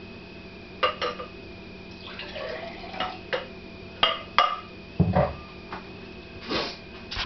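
Glassware handled on a kitchen counter: a glass jug and drinking glass knocking and clinking, about eight sharp clinks spread through, over a faint steady high tone.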